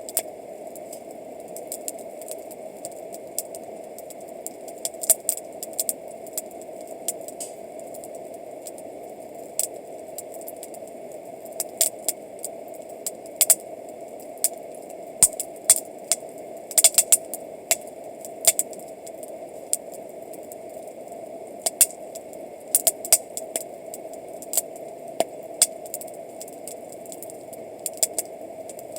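Wood campfire crackling, with irregular sharp pops and snaps at uneven intervals over a steady hiss.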